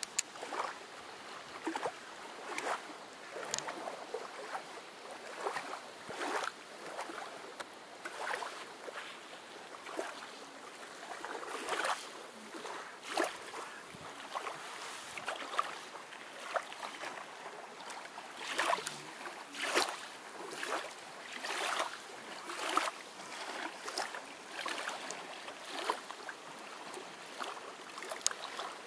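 Small waves lapping at the edge of a lake's sandy shore, with irregular soft splashes about one or two a second.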